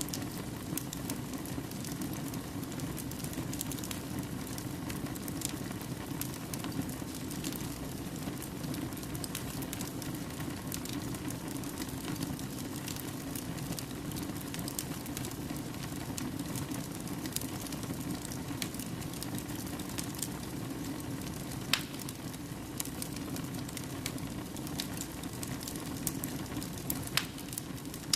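Fire crackling in a fireplace: a steady low rush of flames with frequent small snaps, and a sharper pop a little past the middle and another near the end.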